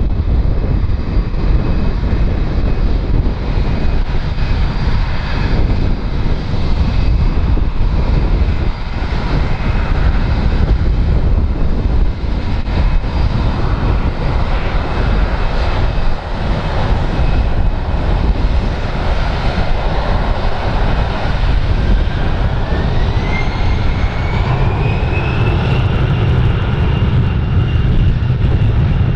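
Condor Airbus A320's jet engines running with a steady whine that rises in pitch about three-quarters of the way through as the engines spool up. Strong wind buffets the microphone.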